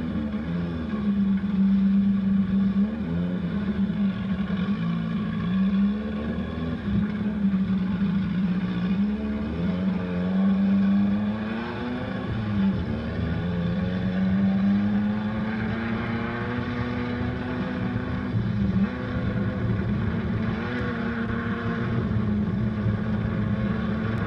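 Dune buggy engine running hard under way, heard from on board, its note rising and falling again and again as the throttle is worked over the trail.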